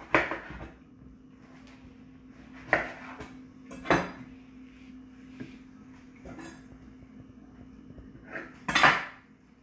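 Kitchen items knocking and clinking on a countertop as they are handled: a handful of separate sharp knocks, the loudest just before the end.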